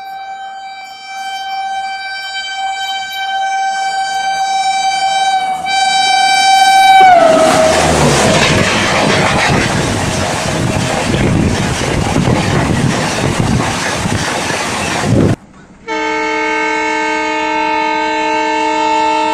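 Vande Bharat Express electric train sounding a long horn as it approaches, the horn's pitch dropping as the train passes, followed by the loud rushing noise of its coaches going by at speed. This cuts off suddenly, and a second steady horn on a different, lower chord then sounds.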